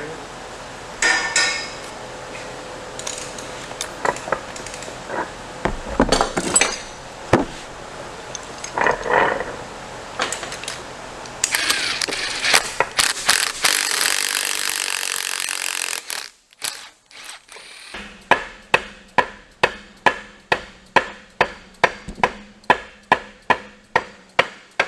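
Hand tools clinking and knocking on transmission parts, then a loud hiss lasting about four seconds. From about three-quarters of the way in comes a steady run of hammer strikes, a bit over two a second, as a bearing is worked off a transmission shaft.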